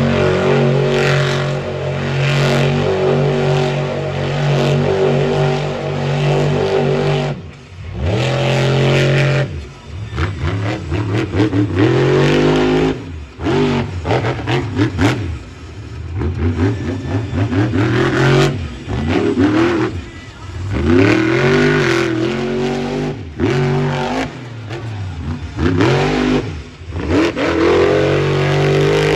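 Monster truck engine revving hard: held steady at high revs for the first several seconds, then repeatedly falling off and surging back up in rising glides, with brief drops where it comes off the throttle.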